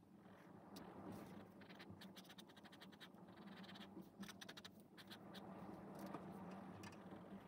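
Pen nib scratching across sketchbook paper in runs of quick, short hatching strokes, faint.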